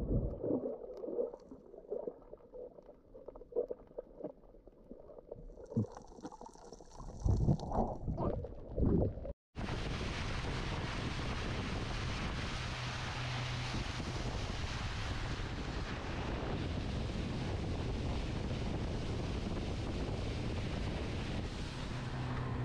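Water and wind noise on the microphone: irregular gurgles and knocks, then, after a sudden cut about nine seconds in, a steady rushing hiss with a faint low hum.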